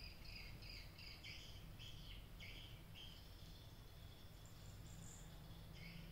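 Near silence, with faint high-pitched chirping in the background that comes in short repeated pulses, like insects or small birds. The playing cats are not heard.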